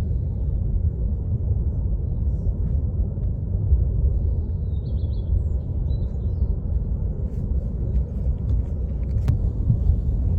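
Steady low rumble of the Kilauea South Vent lava fountain jetting lava about 1,000 feet high. Faint high chirps come through briefly about halfway through.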